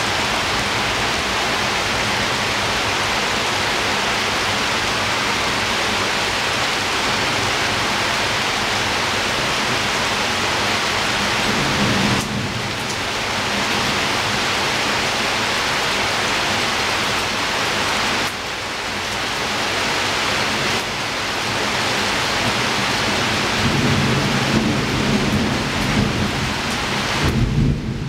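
Heavy rain falling at a window, a dense steady hiss, with low rumbles of thunder about twelve seconds in and again near the end.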